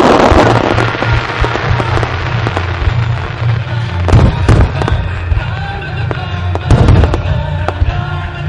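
Aerial firework shells bursting in a series of sharp booms with crackle, the biggest about four and seven seconds in, over music played for the display.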